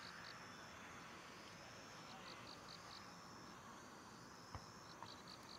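Faint crickets chirping in short runs of high pulses, about five a second, over a steady high trill and a soft hiss. One soft click about four and a half seconds in.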